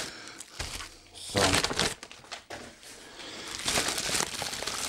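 Plastic bubble-wrap packaging crinkling as it is handled, with a denser stretch of crinkling in the second half.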